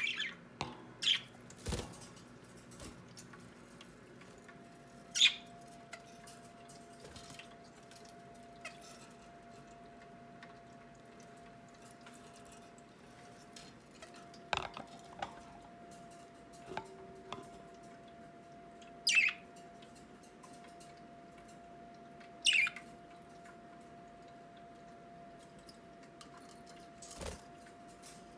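Pet budgerigars giving scattered single chirps: about half a dozen short calls that each slide down in pitch, with long gaps between them.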